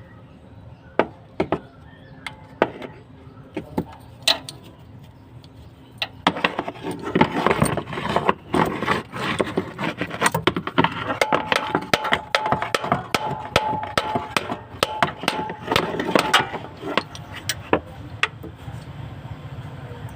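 Metal hand tools clinking and knocking against metal: a few scattered clicks at first, then about six seconds in a rapid, busy clatter that eases off near the end.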